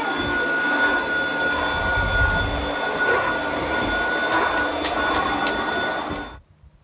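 A small motor running with a steady high whine over a rushing hiss, with a few sharp clicks, stopping suddenly about six and a half seconds in.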